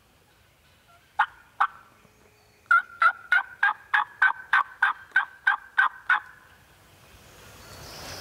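Turkey calling: two single sharp notes, then a quick even run of about a dozen notes at about four a second.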